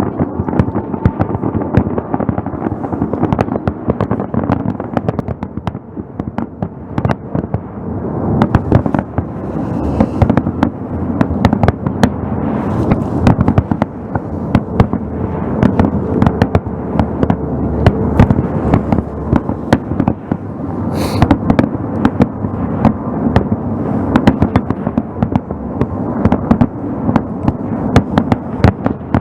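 Aerial fireworks bursting in rapid, continuous succession, many sharp bangs and crackles overlapping over a steady rumble, heard from across the water.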